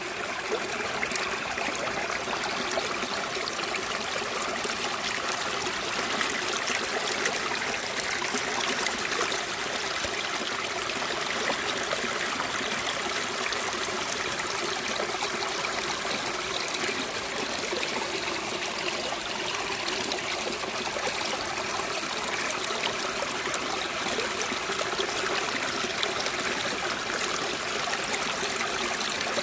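Steady running water, an unbroken flow with no pauses or changes.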